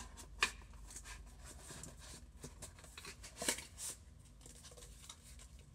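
Cardboard phone boxes being handled and moved: scattered rustling and scraping of cardboard, with a sharp tap about half a second in and a louder scrape and knock about three and a half seconds in.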